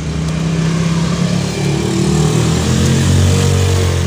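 A motor vehicle engine running close by, its low pitch drifting up and down as it grows gradually louder.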